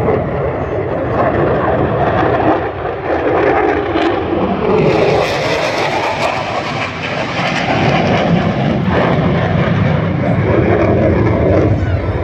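Military fighter jet making a low pass: a loud, continuous jet engine roar that turns harsher about five seconds in as the jet comes closest.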